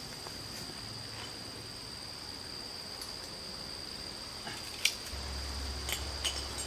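Insects droning steadily at a high pitch in summer foliage. A few sharp clicks come in the last two seconds.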